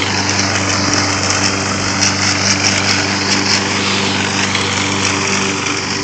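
Gasoline lawn mower engine on a home-built remote-control lawnbot, running steadily as it mows.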